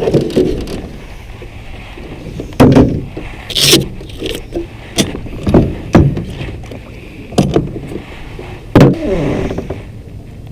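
Knocks, thumps and scrapes of gear being handled in a small fishing boat, about eight separate hits over a steady low rumble.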